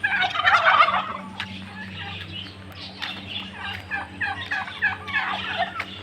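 A flock of captive birds calling together: dense, overlapping short calls and chatter, loudest in a burst during the first second.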